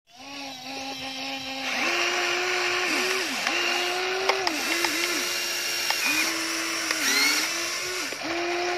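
Radio-controlled toy excavator's electric motors whining as the boom and bucket work. The pitch steps up about two seconds in, then dips and recovers several times as movements start and stop. A few light clicks come in the middle.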